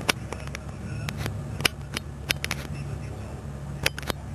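Long-eared jerboa nibbling and crunching a piece of food held at its mouth: about a dozen sharp, irregular crunching clicks over a low steady hum.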